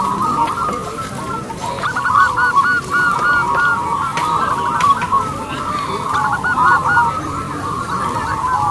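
Many caged zebra doves (perkutut) cooing at once, their short repeated coos overlapping into a continuous chorus at much the same pitch.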